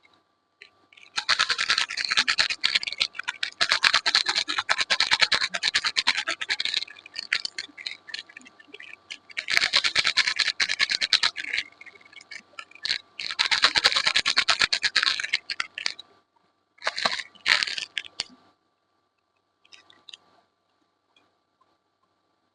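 Soap packaging being opened by hand: several bursts of rapid, dense scratching and crinkling, each lasting a few seconds, with short pauses between them and the last one brief and faint.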